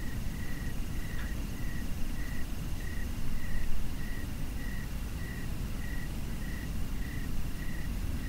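Cricket chirping in a steady, even rhythm, about two chirps a second, over a continuous thin insect trill. A low rumble lies beneath.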